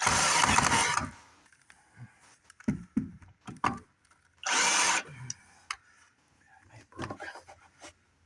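Power drill driving screws into wooden 2x4 framing: a burst of about a second at the start and a shorter one about four and a half seconds in, with small knocks of wood and tools between.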